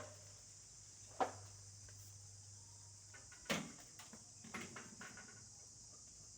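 Two sharp knocks a couple of seconds apart, then a few softer clatters, from hand work fastening electrical conduit clamps. A steady high insect drone runs underneath.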